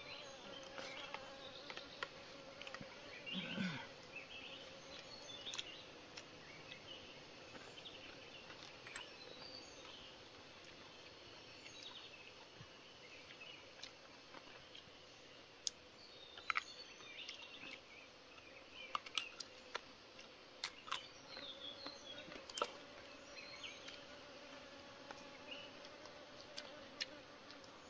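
Faint steady insect buzz, with scattered short clicks and brief high chirps.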